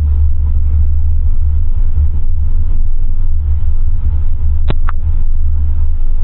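Steady low rumble of a car on the move, heard from inside the cabin, with two quick clicks close together about three-quarters of the way through.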